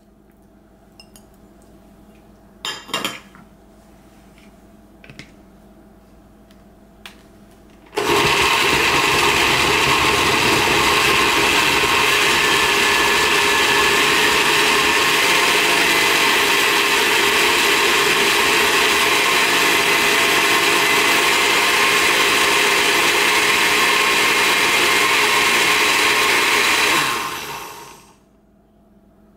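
Countertop blender switched on about 8 seconds in, running steadily for about 19 seconds as it purees a chili and bell pepper mixture, then switched off and winding down. Before it starts there are only quiet handling clicks and a knock.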